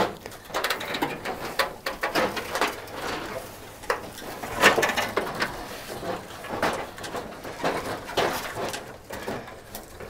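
Brush, twigs and dry leaves crackling and snapping, with irregular knocks and scrapes from a rusted sheet-metal car body as it is carried and dragged through undergrowth.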